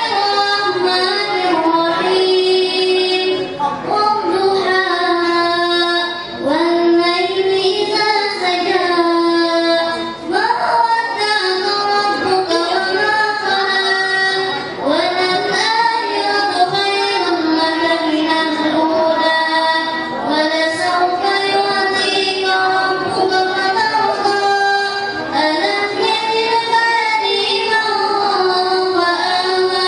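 A girl singing solo into a handheld microphone: one continuous, ornamented melody whose notes glide and bend, with only brief pauses for breath.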